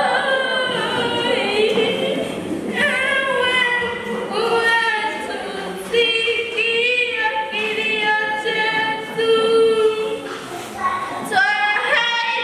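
A young girl singing a mournful prayer song into a microphone, tearful, holding long drawn-out notes with short breaks for breath.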